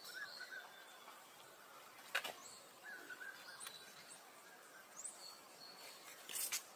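Faint outdoor ambience with scattered bird chirps: short rising chirps and a few brief wavering calls. Two sharp clicks stand out, the louder one about two seconds in and another near the end.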